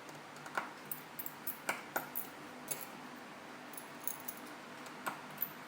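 Small repair tools clicking and tapping against the parts of an iPhone 5 opened for repair: a dozen or so light, irregular clicks.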